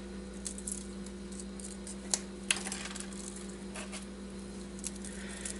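Scattered light metallic clicks and ticks of copper wire being unwound by hand from a transformer winding, over a steady low hum.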